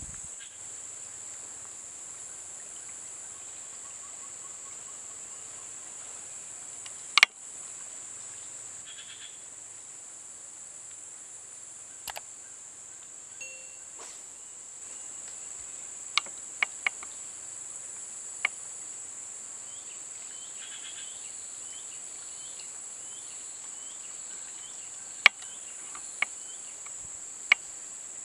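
Steady high-pitched drone of insects in tropical streamside vegetation, with a handful of sharp clicks scattered through it, the loudest about seven seconds in and a cluster later on.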